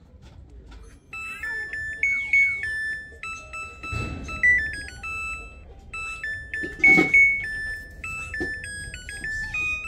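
Samsung Eco Bubble washing machine's buzzer playing its electronic jingle, a tune of clean beeping tones stepping between a few pitches. Two dull knocks sound about four and seven seconds in.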